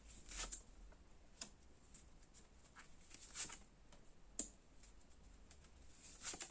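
Faint soft swishes and light clicks of tarot cards being handled and laid on a table, about five at irregular intervals.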